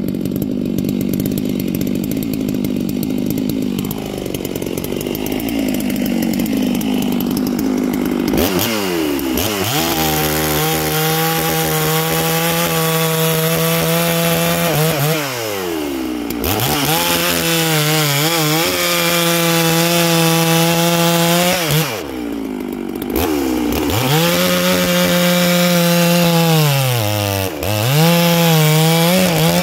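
Neo-tec NS892 two-stroke chainsaw cutting rounds off a log at full throttle. From about eight seconds in, the engine climbs to a high, steady pitch for each cut and drops back between cuts, several times over.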